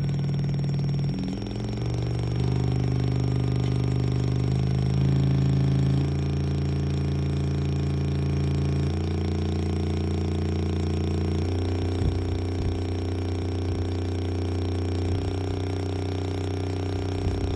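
JBL Xtreme 2 portable Bluetooth speaker, stripped of its grille, playing a bass test: deep held bass notes that jump to a new pitch every one to four seconds, driving its woofers and passive radiator.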